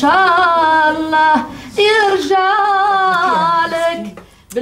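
A woman singing a slow, mournful song in Maghrebi Arabic, unaccompanied, holding long notes with vibrato. She sings two phrases, with a short breath about a second and a half in.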